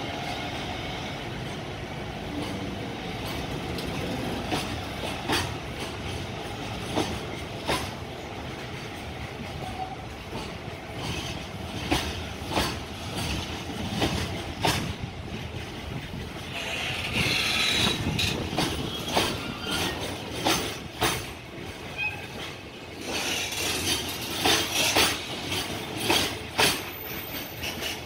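Freight train container flatcars rolling past at speed: a steady rumble of steel wheels on rail, cut by sharp clicks as the wheelsets cross rail joints. The clicking grows louder and more frequent in the second half.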